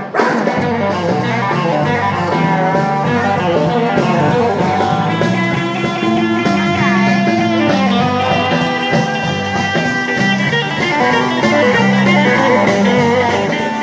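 Band music led by guitar: an instrumental passage of rock-and-roll or blues, with held and bent guitar notes over a steady bass and no singing.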